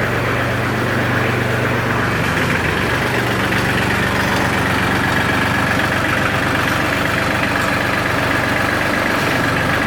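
New Holland TC33DA compact tractor's diesel engine running steadily.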